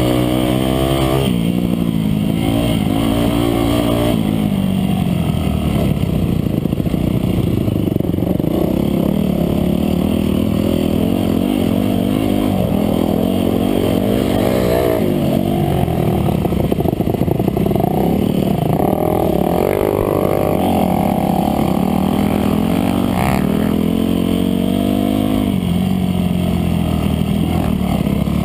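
Dirt bike engine under way on an off-road trail, its pitch rising and falling again and again as the throttle is opened and closed.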